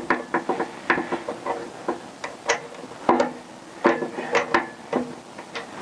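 Hand tools clinking and clattering on metal as a socket and torque wrench are tried on a nut of a Honda CBR1000F's rear shock linkage, with an open-ended spanner held on the bolt. An irregular string of sharp knocks, several ringing briefly.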